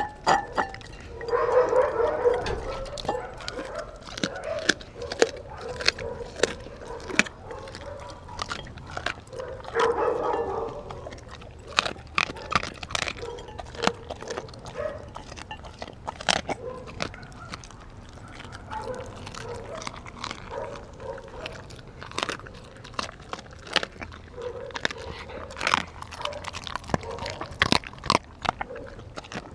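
A Kelpie–German Shepherd mix dog chewing and crunching raw meat close to the microphone, with sharp, irregular crunches throughout. There are two louder, longer stretches of eating about two seconds in and again about ten seconds in.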